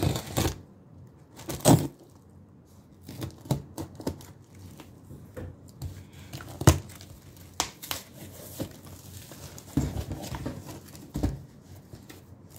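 Scissors cutting and ripping the packing tape on a cardboard shipping box, then the cardboard flaps being pulled open. It comes as irregular scrapes, rips and crinkles with a few sharp snaps.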